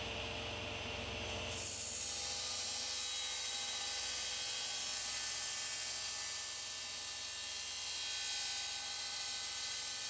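Sliding-table panel saw running, its blade cutting through a plywood panel. About one and a half seconds in, a steady high-pitched cutting noise comes in and holds.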